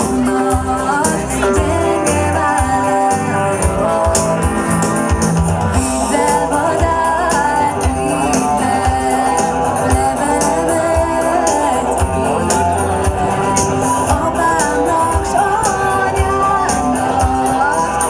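A live band playing a song: women's voices singing over electric guitar, electric bass, keyboard and a steady drum beat.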